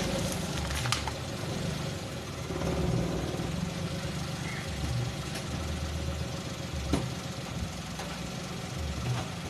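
Car engine idling with a steady low hum, and a couple of short sharp cracks, one about a second in and one about seven seconds in.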